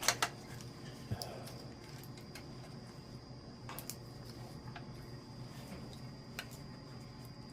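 Small, sparse clicks and ticks of motorcycle wiring-harness connectors being handled and pulled apart, a few irregular clicks over several seconds, over a steady low background hum.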